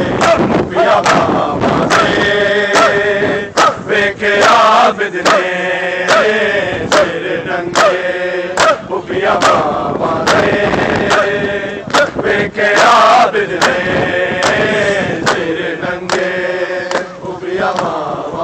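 Crowd of men chanting a mourning lament (noha) together. A steady beat of sharp open-hand slaps from bare-chested chest-beating (matam) runs under the chant.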